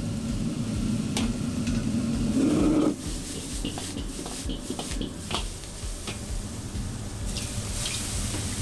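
Gas wok burner roaring under a wok while a steel ladle scrapes and clinks against the wok in a stir-fry, with food sizzling. The burner's roar drops away about three seconds in, leaving the ladle strokes and sizzle.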